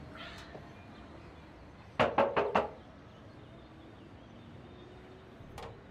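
Four quick knocks on a door, about two seconds in.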